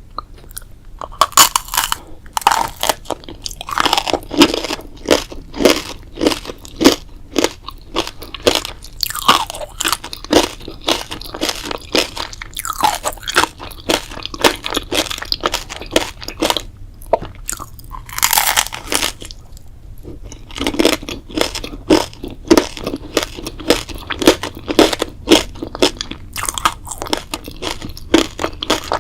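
A person chewing and biting crunchy food, a quick run of crisp crunches with a couple of short pauses.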